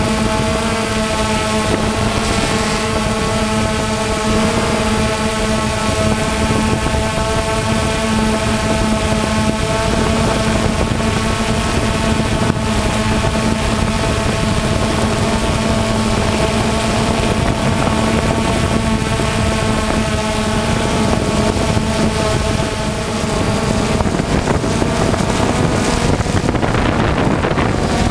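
A motor hums steadily at one unchanging pitch over a constant rushing noise.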